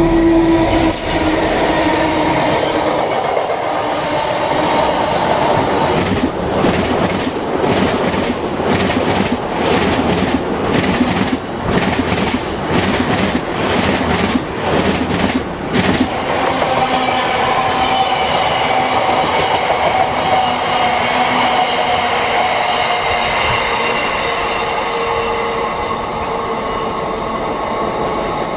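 A Great Western Railway Intercity Express Train passes at speed, its wheels giving a fast, even clickety-clack over the rail joints for about ten seconds. After that comes the rumble of a freight train's wagons on the other line, with thin wheel squeal over it.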